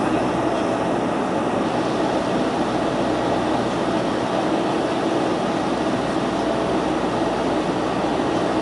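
Steady cabin drone of a Bombardier Dash 8's twin turboprop engines and propellers, heard from inside the passenger cabin, with a faint steady tone running through it.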